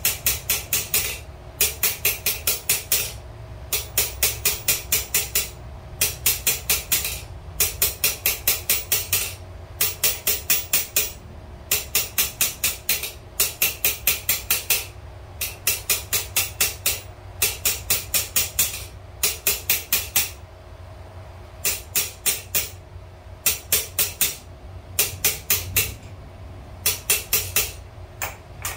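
Light hammer tapping rapidly on a spring fuller holding red-hot steel on the anvil. The sharp metallic taps come about six a second, in runs of a second or so broken by short pauses. The steel is being tapped lightly, not hit hard.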